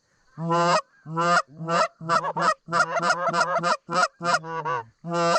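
Hand-blown goose call imitating Canada goose honks: several loud, spaced honks, a quick run of short clucks around the middle, then more spaced honks, calling to a turning flock.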